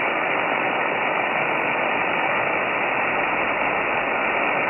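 Receiver hiss: steady band noise from a shortwave receiver tuned to 14.239 MHz on the 20-metre amateur band, with no station coming through and a faint steady whistle under the hiss.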